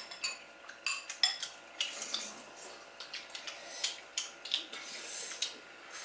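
Spoons and chopsticks clinking and scraping against soup bowls while a family eats: a scattered run of sharp clinks, a few of them ringing briefly.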